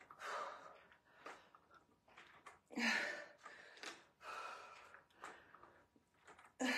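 A woman breathing hard under exertion: a series of short, forceful breaths a second or two apart, while lifting dumbbells overhead.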